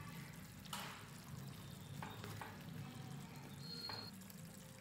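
Wooden spatula stirring thick potato curry in a pan: a few faint, short stirring strokes.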